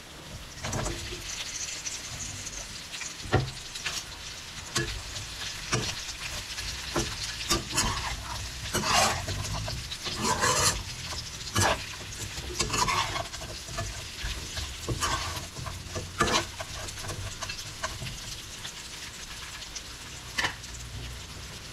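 Smoked squirrel meat sizzling in a pan as it is stir-fried in soy sauce, with irregular scraping and knocking strokes of the stirring utensil against the pan, roughly one a second, over a steady frying hiss.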